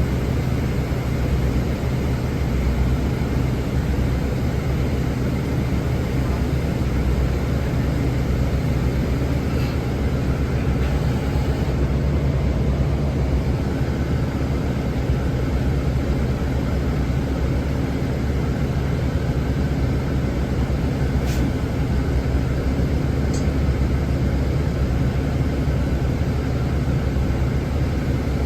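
Engine of a 2013 Nova Bus articulated city bus heard from inside while running: a steady low drone with a faint whine over it, which the rider finds odd and unusual for this bus. Two brief clicks come near the end.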